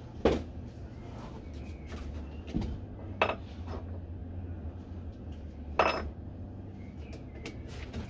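Sharp metallic clinks and knocks, three louder ones a few seconds apart with a brief ring, and a few fainter ticks, over a steady low hum.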